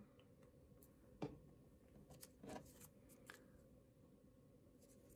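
Near silence with a few soft, brief taps and rustles of a small cardstock flower envelope being picked up off a tabletop and handled.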